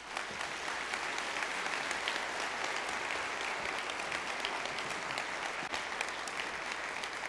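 Audience applauding: many hands clapping in a steady, dense sound that holds without a break.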